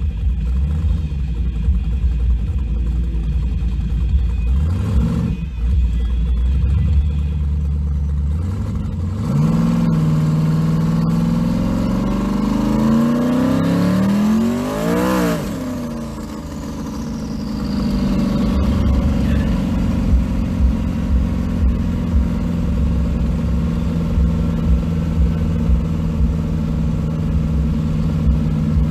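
Engine of a 1500 hp Chevrolet S10 street truck, heard from inside the cab. It idles with a low, uneven rumble, then accelerates from about nine seconds in, its pitch rising for several seconds. It eases off around sixteen seconds and then runs steadily at cruising speed.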